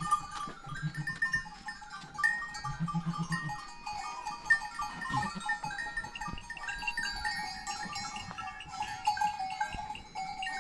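Goats bleating in a herd pen, with two low, pulsing bleats in the first few seconds. Many short high ringing notes sound throughout.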